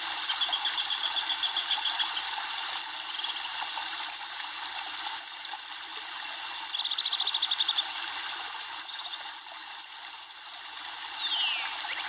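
Shallow river water lapping and rippling over sand and stones at the shore, a steady wash of sound, with small songbirds calling over it: a fast trill in the first two seconds, another trill in the middle, scattered chirps and a falling whistle near the end.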